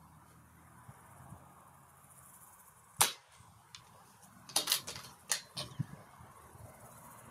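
A single shot from a Reximex Throne Gen-2 .177 PCP air rifle about three seconds in, followed a second and a half later by a quick run of smaller clicks and knocks.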